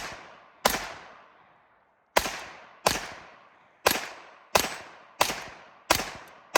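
About eight shots from a CZ Scorpion Evo 3 9mm pistol fired one at a time in quick semi-automatic succession, with a short pause after the first. Each shot rings out and dies away before the next.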